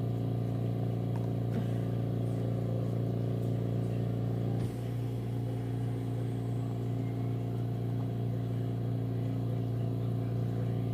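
A steady low mechanical hum, with a slight dip in level about five seconds in.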